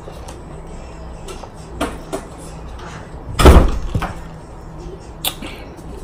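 A plastic drinking cup is set down on the table with a heavy thump about three and a half seconds in, the loudest sound. A few lighter clicks come before and after it.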